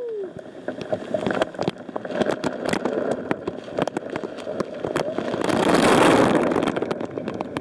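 Waterfall spray and falling water pouring onto a kayak and its mounted camera: a steady rush peppered with many sharp drop hits, swelling to its loudest about six seconds in as the camera is drenched.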